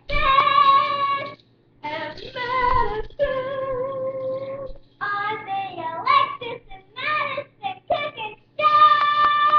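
A child singing, holding long notes between shorter, quicker phrases.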